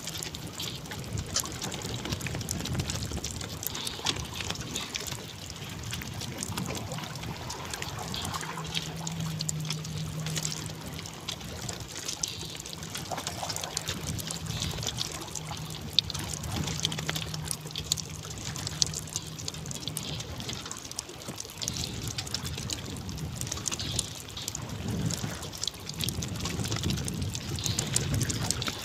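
Sea water splashing and trickling around a small wooden boat and off a longline being hauled in by hand, with many small clicks and knocks of line and hooks against the boat. A low steady hum comes and goes in the first two-thirds.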